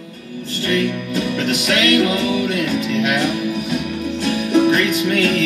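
A song with guitar and singing playing through the speakers of a restored 1967–72 Chevrolet truck radio with an Aurora Design AM/FM conversion, tuned to a preset station. The music comes up about half a second in.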